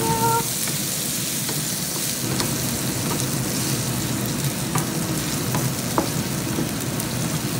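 Diced meat and carrots sizzling steadily in a hot frying pan while being stirred with a wooden spatula, with a few light taps and scrapes of the spatula against the pan.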